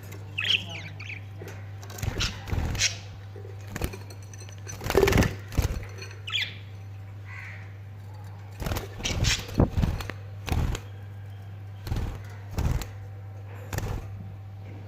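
Parrot moving about, making a series of short rustling and knocking bursts, with brief high squeaky chirps near the start and about six seconds in. A steady low hum runs underneath.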